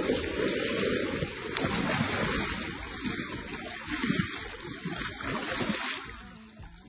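Shallow river water splashing and sloshing, stirred by a large sturgeon, fading out near the end.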